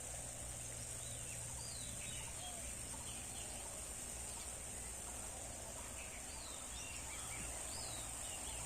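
Outdoor rural ambience: a steady high-pitched insect drone with scattered short bird chirps over it.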